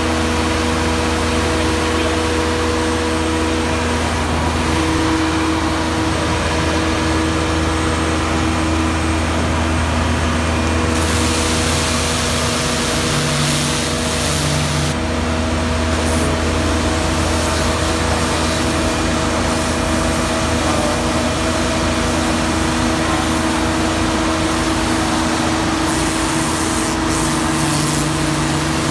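Van-mounted high-pressure water jetting unit running with a steady, low engine drone and several steady humming tones. A loud hiss of the water jet spraying comes in about eleven seconds in for a few seconds, and again near the end.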